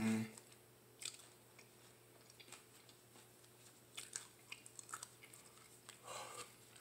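Faint, scattered wet mouth clicks and lip smacks from someone whose mouth is starting to burn from a Carolina Reaper chip, with a breath blown out near the end.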